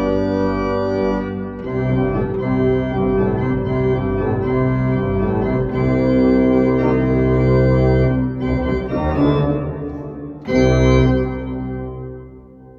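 Church organ playing sustained chords, with a loud final chord about ten seconds in that dies away near the end.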